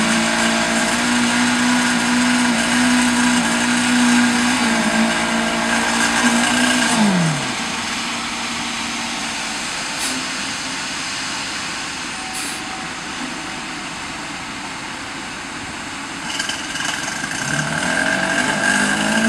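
Concrete mixer truck's engine running at steady high revs, then winding down, falling in pitch about seven seconds in, and revving back up near the end.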